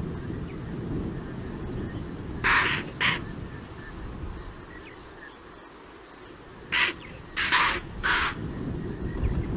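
Impala alarm snorts: five short, sharp blows, two about two and a half seconds in and three more near the end. They are the herd's warning call at approaching predators.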